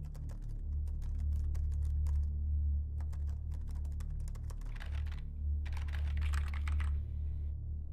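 Rapid typing on a computer keyboard, fast key clicks in several bursts with short pauses between them, over a steady low hum.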